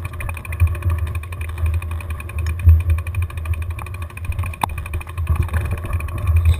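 Wind buffeting and rumble on a mountain bike's handlebar-mounted camera as the bike is pushed through soft sand, with a single sharp click about two-thirds of the way through.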